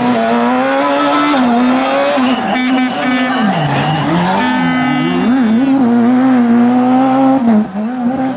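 Rally car engine at high revs, holding a steady pitch, then dropping sharply about three and a half seconds in and climbing back as it lifts off and accelerates again, with a high squeal over it about halfway through.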